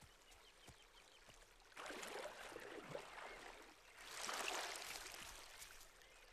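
Faint water splashing and sloshing from animals swimming to the bank. It comes in two stretches of about two seconds each, the second, about four seconds in, a little louder.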